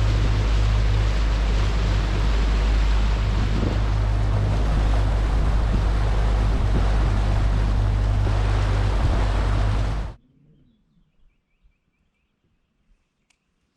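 Boat motor running at speed, a steady low drone mixed with wind and water noise; it cuts off abruptly about ten seconds in, leaving near silence with a few faint ticks.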